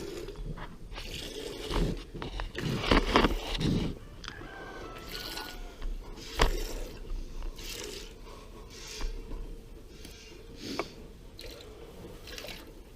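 A calf licking and mouthing the camera, its tongue and muzzle rubbing right on the microphone: irregular wet scraping and crunching, loudest about three seconds in and again a little past six seconds.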